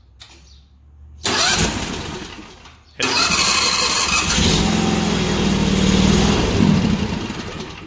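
Predator V-twin gas engine cranked by its electric starter, now working with a relay fitted, and starting. It cranks briefly, catches about three seconds in and runs loudly and steadily, then dies away near the end.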